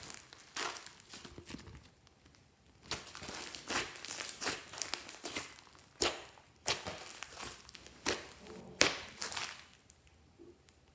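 Hands squishing and stretching slime: bouts of wet crackling with a few sharp pops, two of them loud, about six and nine seconds in.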